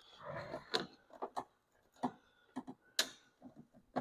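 Scattered light clicks and taps of plastic door trim parts and wiring being handled by hand, the sharpest click about three seconds in.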